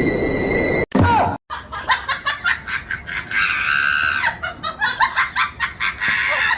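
Someone laughing hard in rapid, high-pitched bursts, with a drawn-out scream in the middle; the laughter starts after an abrupt cut about a second in.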